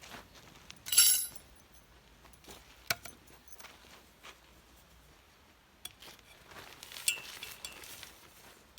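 Hard objects clinking together as gear is handled: one loud ringing clink about a second in, a sharp knock a couple of seconds later, and a few softer clinks with rustling near the end.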